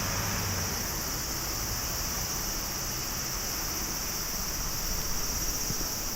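Distant rushing noise of an Airbus A350-900's Rolls-Royce Trent XWB jet engines as the aircraft climbs away after takeoff, over a steady high-pitched hiss.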